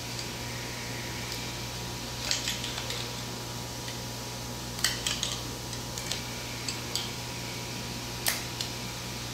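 Screwdriver tip prying and pushing a steel spiral retaining ring into its groove on the end of a machine vise's lead screw: scattered metal clicks and scrapes in small clusters, with a sharper click near the end. A steady low hum runs underneath.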